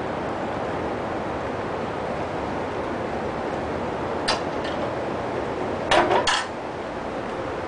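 Steady background hiss, with a sharp click about four seconds in and a short cluster of clicks and knocks about six seconds in.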